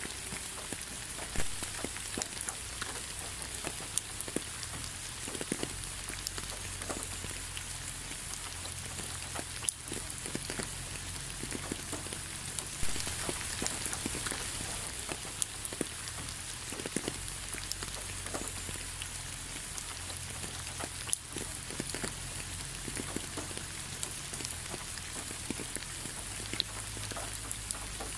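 Steady rain falling: an even hiss dotted with many sharp, irregular drop ticks, over a faint low rumble.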